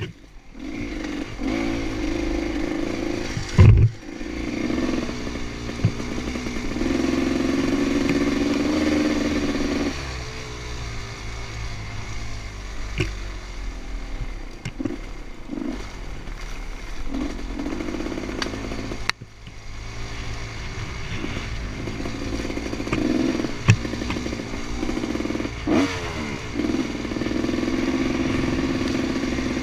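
Dirt bike engine revving up and down as the bike climbs a rough trail, with knocks and clatter along the way and one loud thump about four seconds in. The engine sound dips away briefly about 19 seconds in.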